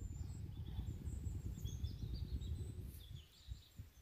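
Small birds chirping over a low rumble that drops away about three seconds in.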